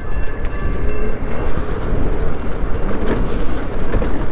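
Wind rushing over the microphone and street traffic noise on the move: a steady, heavy rumble with no clear single event.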